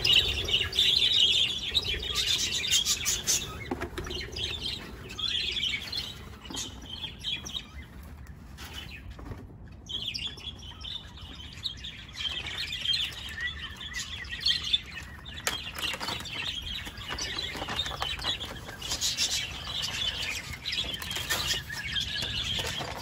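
A large flock of budgerigars chattering and chirping together, with wings flapping as birds fly about. The chatter thins briefly about midway.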